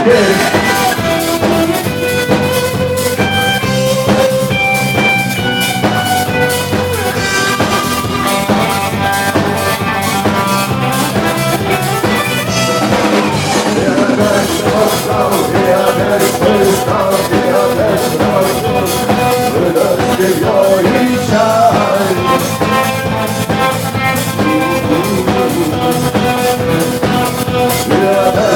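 Background music: a band with a steady drum beat and sustained instrumental notes, with some singing.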